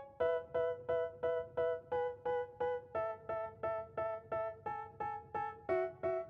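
Background music: a repeated piano chord struck about two and a half times a second, the chord changing every few seconds.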